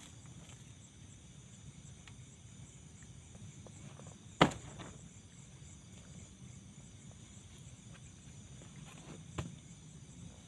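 A single sharp knock about four seconds in and a fainter one near the end, over a steady low background rumble.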